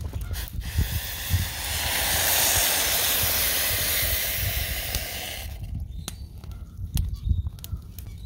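Hot water being poured into a French press for campfire coffee: a steady splashing hiss that swells and then stops about five and a half seconds in, followed by a few light clicks.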